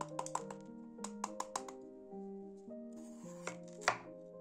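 Kitchen knife cutting a yellow bell pepper on a wooden board: a quick run of sharp taps of the blade on the board, then a short crisp slice through the pepper ending in a louder knock near the end. Soft piano background music plays throughout.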